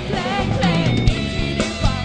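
Live rock band playing: a woman singing lead in Thai over electric guitars, bass and a drum kit beating steadily.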